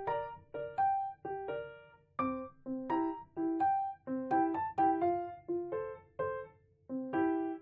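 Background piano music: a light melody of separate notes, several a second, each fading away.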